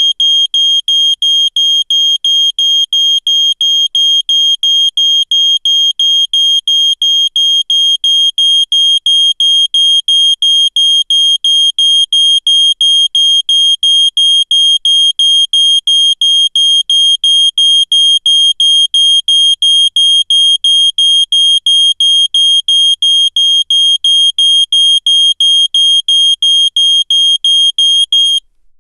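Smoke alarm sounding, a loud, high-pitched piezo beep repeated in a rapid, evenly spaced string that cuts off near the end.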